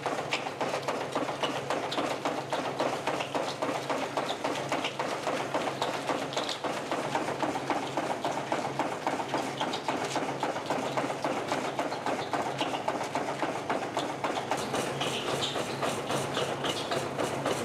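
Horizontal frame saw running, its blade frame sliding back and forth through a log in a steady, rapid mechanical clatter.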